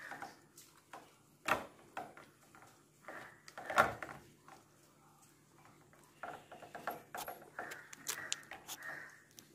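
Hands smearing wet masala paste over fish on a steel plate, with knocks and clicks of the plate on the counter, the loudest about four seconds in, and a run of quick light ticks near the end.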